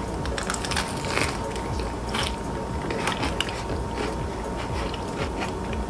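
Biting and crunchy chewing of a veggie sub wrapped in iceberg lettuce: many irregular crisp crackles of the leaves breaking between the teeth.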